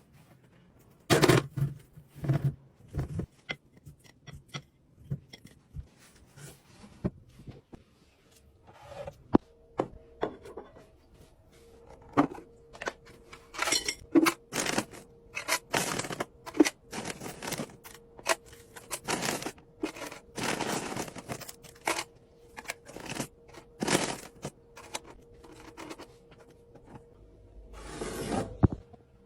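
Restocking noises: packaging torn and crinkled and items and containers set down or handled, in a string of irregular sharp clacks and rustles. A faint steady hum sits underneath from about eight seconds in.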